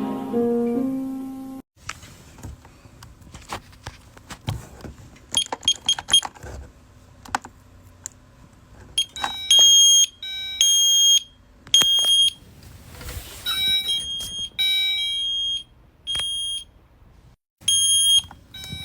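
Music cuts off about a second and a half in, followed by scattered clicks and knocks. From about halfway, an electronic alarm beeper sounds a run of short, shrill beeps at uneven intervals.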